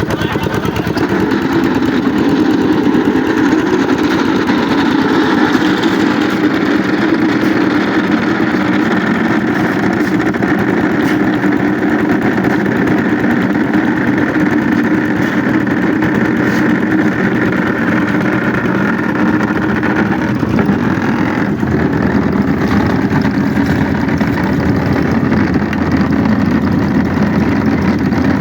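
A engine running steadily at an even speed, a continuous low rumble with a rapid pulse.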